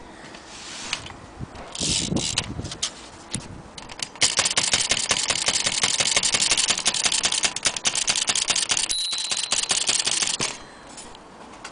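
Vintage Corona typewriter being typed on: a fast, dense run of key clacks lasting about six seconds after some scattered clicks and clatter. The margin bell rings once near the end of the run.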